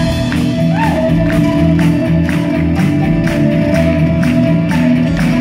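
Live rock band playing, with a steady drum beat, bass and electric guitar, and a flute line over the top. Heard from the audience through a phone's microphone.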